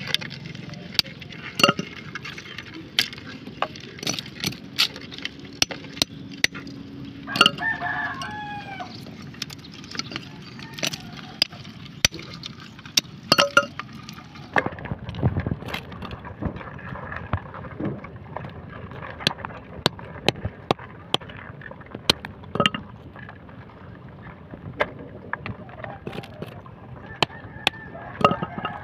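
Claw hammer cracking snail shells against rock to get the hermit crabs out, in sharp, irregular knocks. A rooster crows about seven seconds in and again near the end.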